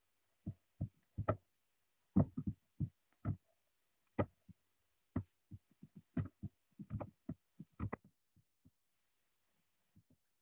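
A run of irregular short clicks and soft thumps, about twenty of them, some in quick clusters, thinning out after about eight seconds.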